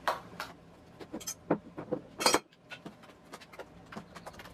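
Scattered light taps and clinks as white slime is handled and mixed on a clear palette tray while a little more borax activator is worked in, with one louder clink a little past two seconds.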